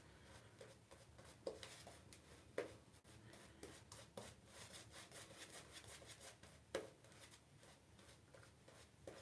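Shaving brush working lather over a face and beard: faint, soft rubbing with a few brief louder strokes.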